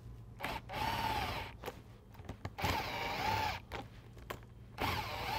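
Power driver spinning a socket to run nuts down onto the bolts of a bolt solid plate belt fastener, on a first pass that brings the plates flat against the belt. It runs three times, each burst about a second long.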